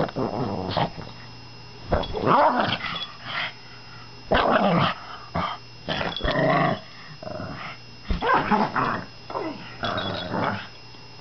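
Pug growling in play, in about seven short bouts of a second or less each with brief pauses between them.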